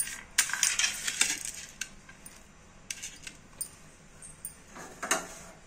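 Scattered light metallic clinks and taps from a stainless steel bowl of chopped spinach being handled. Several come in the first second or so and a few more near the end.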